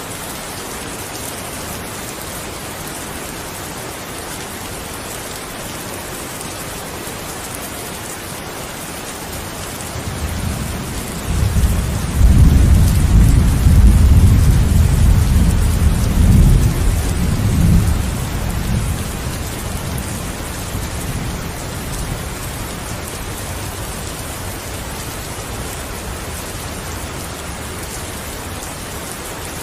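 Steady heavy rain hissing, with a long roll of thunder rising about a third of the way in, rumbling loudest for several seconds and fading away again.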